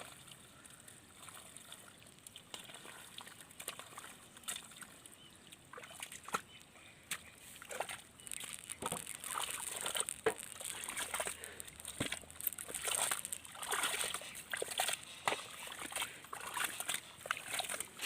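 Wet mud and water sloshing and splashing in a flooded rice paddy as people work in thigh-deep mud around a stuck hand tractor. The sound is irregular, with scattered wet smacks, and gets busier and louder about halfway through.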